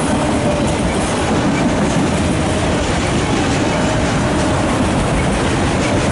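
Loaded autorack freight cars rolling past close by: a steady, loud rumble with the clatter of the wheels on the rails.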